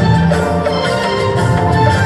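Loud music with long held notes over a steady low bass.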